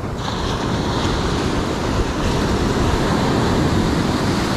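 Ocean surf breaking on a sandy beach and washing up the shore as a set of waves comes in, building louder over the first couple of seconds.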